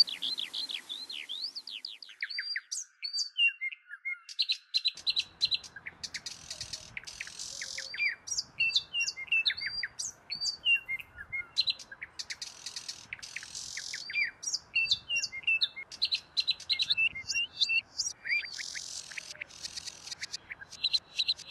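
Small birds chirping and twittering: many short, high, quick calls and falling notes, over a faint steady hiss that comes in a few seconds in.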